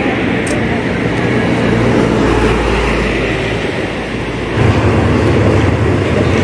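Traffic noise heard from a moving motorcycle: engines running steadily under a rush of road and wind noise. A deeper engine hum comes in about four and a half seconds in.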